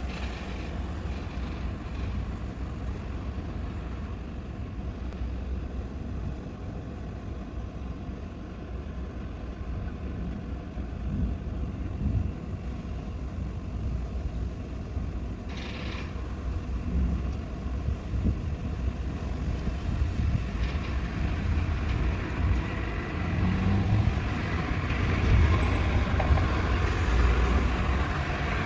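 Distant thunder rumbling low and continuously, swelling louder in the second half, with a brief sharp crack about halfway through.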